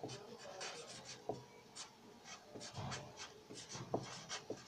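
A black marker pen writing by hand on a white sheet: a run of short, irregular strokes as the letters are drawn.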